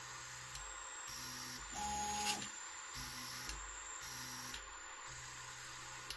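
CoreXY 3D printer's stepper motors humming through a run of short stop-start moves during auto bed leveling with a D-Touch probe, over a steady hiss. About two seconds in, one louder, higher-pitched move ends in a sharp click.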